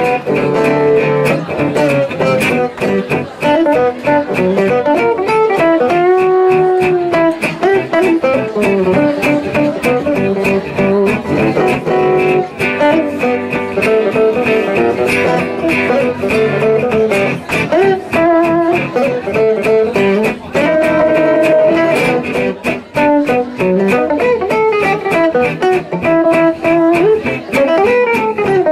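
Two gypsy-jazz (jazz manouche) acoustic guitars in a duo: one plays a fast single-note lead line with bent and slid notes, including a long held, curving note about six seconds in, while the other keeps a steady strummed rhythm underneath.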